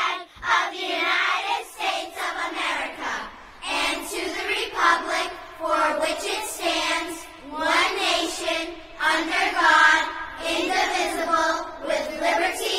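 A group of children singing together, choir-like, in drawn-out sung notes.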